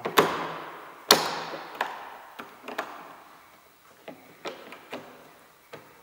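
Sharp clicks and knocks of a BMW 1 Series rear exterior door handle being worked back into place in the door: two louder snaps near the start, then a scatter of lighter taps.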